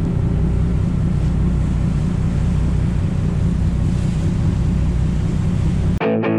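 A ferry's engine running with a steady low rumble, mixed with wind buffeting the microphone and sea noise. The rumble cuts off abruptly near the end as guitar music comes in.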